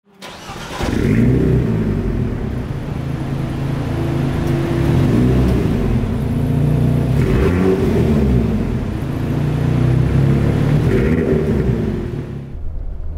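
Alpine A110's 1.8-litre turbocharged four-cylinder engine and exhaust, running and revved several times, its pitch rising and falling with each rev.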